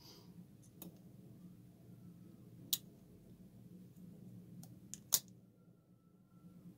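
A few sharp clicks and taps, as of small tools on a workbench: one about a second in, a louder one near 3 s, and a cluster of three near 5 s, the last the loudest. A steady low hum runs underneath.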